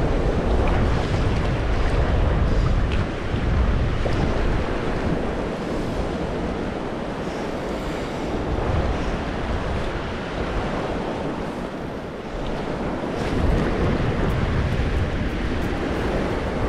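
Strong gusty wind buffeting the microphone with a heavy low rumble, easing for a few seconds in the middle and picking up again near the end, over the steady rush of river water.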